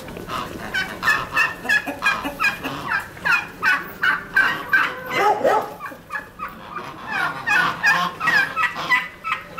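Domestic fowl calling: a rapid run of short, repeated calls, about three a second, with a lower call about halfway through.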